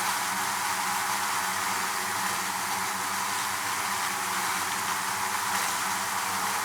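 Honeybee hive: many bees buzzing together in a dense, steady drone.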